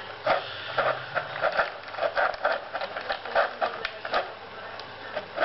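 A dog eating dry kibble fast from a plastic bowl: quick crunching bites, about three a second.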